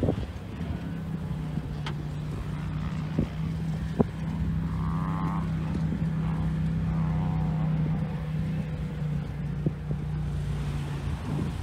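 Third-generation Toyota Tacoma crawling slowly over rough dirt and rocks: a steady low engine hum, with a few sharp knocks and clunks as the tyres and suspension work over the ruts.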